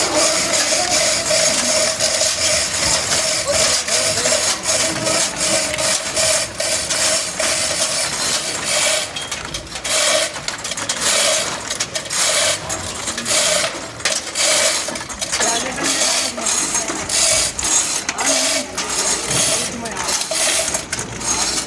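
Pigs being loaded onto a truck: a loud, dense clatter of rapid clicks and knocks. A steady mid-pitched tone runs through the first half and breaks into short pulses after about ten seconds.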